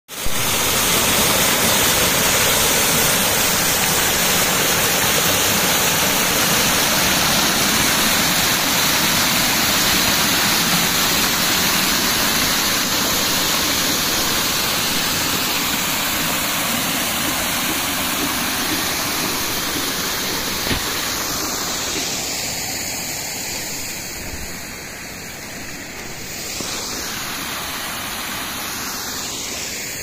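Small waterfall splashing over rocks into a shallow stream: a steady rush of falling water that grows quieter over the last ten seconds or so.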